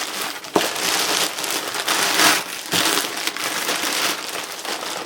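Plastic shrink-wrap crinkling and crackling as it is pulled and peeled off a cardboard product box, with a sharp snap about half a second in.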